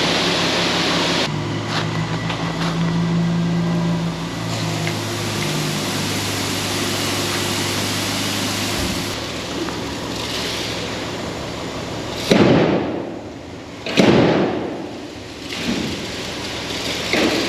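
Two loud metal bangs about a second and a half apart near the end, each ringing briefly: the back door of a grain trailer being slammed shut. Under them, a steady mechanical hum from a running engine.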